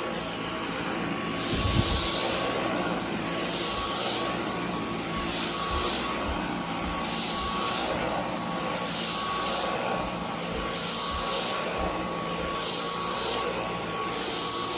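Dyson V10 Animal cordless stick vacuum running with a steady high-pitched motor whine. The rush of air swells and fades about every two seconds as the head is pushed back and forth over the floor.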